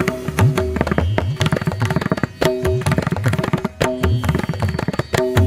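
Background music: a fast hand-drum rhythm, its low strokes bending in pitch, over a few held notes.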